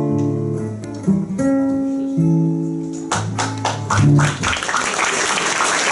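Acoustic guitar playing the closing notes of a song after the last sung line. About three seconds in, audience applause breaks out over the final notes and carries on.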